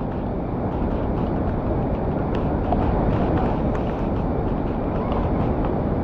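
Swollen, muddy floodwater rushing over a low stepped waterfall and churning in the pool below, a steady loud rush of water.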